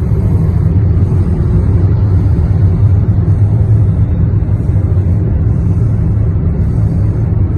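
Baby boy snoring, a loud low rumble with no clear breaks between breaths.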